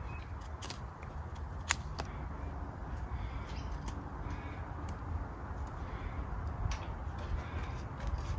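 A folding grafting knife shaving the base of a green avocado scion into a wedge: scattered soft clicks and scrapes of the blade through the stem, over a low steady background rumble.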